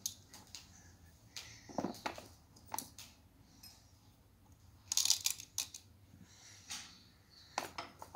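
Sugar sprinkles being poured and shaken into small plastic chocolate moulds: scattered light clicks and rustles, the loudest cluster about five seconds in.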